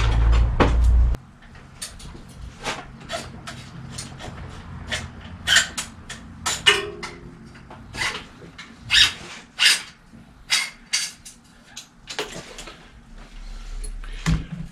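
Irregular clicks and light knocks from hands and tools working on a bicycle in a repair stand while its rear brake is adjusted. A loud low hum cuts off suddenly about a second in.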